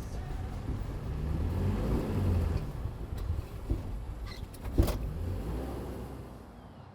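A road vehicle drives past, loudest about two seconds in. A sharp knock comes near the five-second mark, and then the noise dies down.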